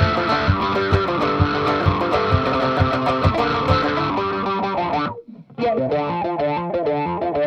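Tenor banjo played with a pick, a fast jig melody. A low thump marks the beat about twice a second for the first few seconds. Just past five seconds in, the playing stops for about half a second, then starts again.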